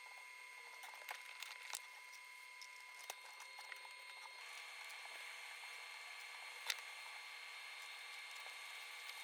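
Faint steady electrical hum with scattered light clicks and knocks, and one sharper click about two-thirds of the way through.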